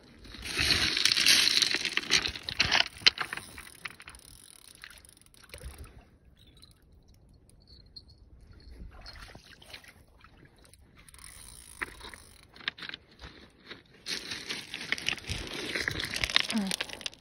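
Footsteps crunching on a pebble shore, in two loud spells of scraping and clicking, one starting about half a second in and the other near the end, with scattered clicks between.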